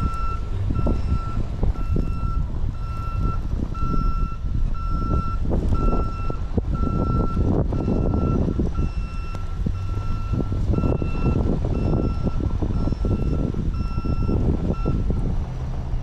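A vehicle's reversing alarm sounding a steady train of short, single-pitch beeps, about three every two seconds, which stops near the end. Under it is a continuous low rumble.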